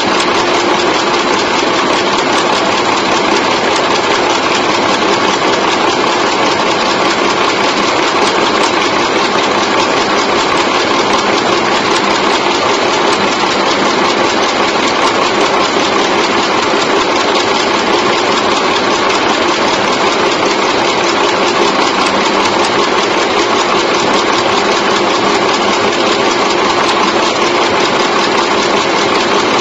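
Automatic chewing gum machine running steadily, its mechanism making a loud, fast, even clatter.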